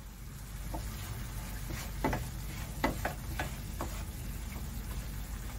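Wooden spatula stirring a thick tomato-onion masala in a non-stick frying pan: a handful of sharp clicks and scrapes of wood on the pan, bunched between about two and four seconds in, over a low steady hum.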